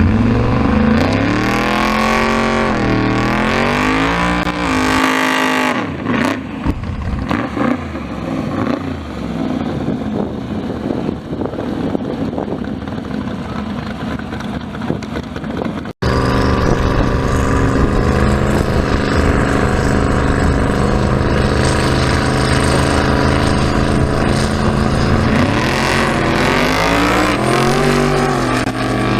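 Drag race car engines revving, the pitch swinging up and down with throttle blips over the first few seconds. After an abrupt break about halfway through, an engine runs at a steady, loud idle, and the revving starts again near the end.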